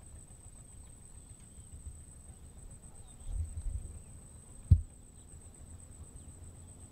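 Quiet pondside outdoor ambience: a steady high-pitched whine, with a few faint short chirps. A low rumbling bump comes about three seconds in, and a single sharp low thump comes just under five seconds in.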